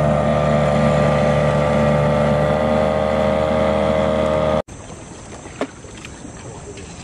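Boat outboard motor running steadily at cruising speed; the sound cuts off abruptly about four and a half seconds in. What follows is much quieter, with a few faint knocks.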